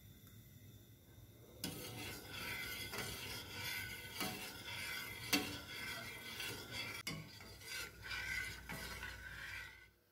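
Metal spoon stirring soapy water in a stainless steel pot, scraping and rattling against the pot's sides and bottom, with several sharper clinks. The stirring starts about a second and a half in and stops abruptly near the end.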